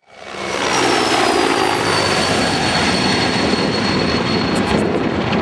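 Aircraft engine noise fading in to a loud, steady rush. A thin high whine slides down in pitch over the first two seconds and then holds steady.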